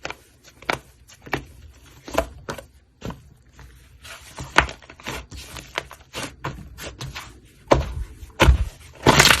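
Slime being squeezed and poked by hand, giving irregular sticky pops and clicks, with a louder cluster of pops near the end.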